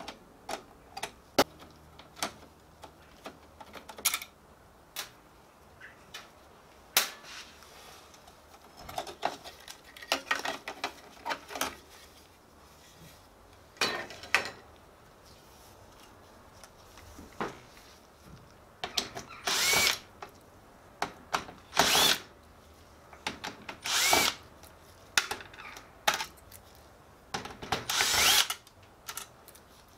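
Cordless drill-driver driving screws into a sheet-metal panel frame, running in about four short whirring bursts of about a second each in the second half, each spinning up in pitch. Before that, sharp clicks and clatter of parts and tools being handled.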